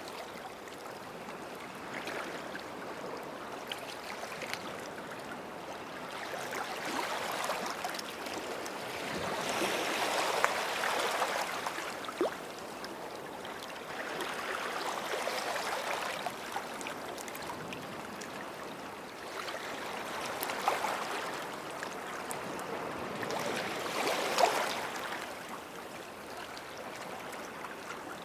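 Small sea waves lapping at the water's edge, rising and falling in gentle swells every four to five seconds, with a few brief splashes.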